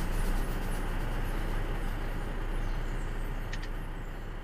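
Diesel engine of a Freightliner Columbia semi tractor idling, heard inside the cab as a steady low rumble that slowly fades toward the end. A short high chirp sounds about three and a half seconds in.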